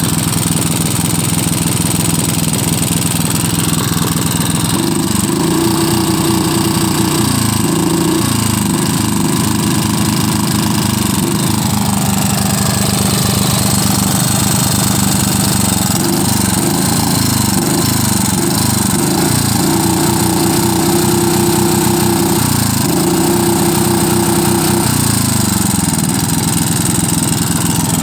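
Lombardini IM 350 engine running roughly, its speed hunting up and down unevenly in two long stretches and settling between them. This is the rough idle and poor acceleration that persist despite a clean air filter, a cleaned carburetor and no vacuum leak.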